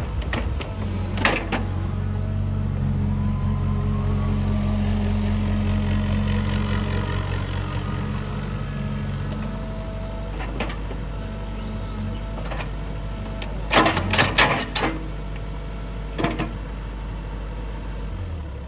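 Cat 305E2 mini excavator's diesel engine running steadily as the boom and arm are worked on the hydraulics. The engine note eases a little lower partway through. Several sharp knocks cut across it, the loudest a quick cluster about three-quarters of the way in.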